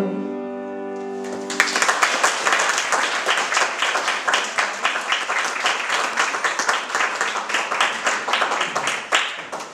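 The last held chord of the song fades out, then about a second and a half in a room full of people breaks into applause, which dies away near the end.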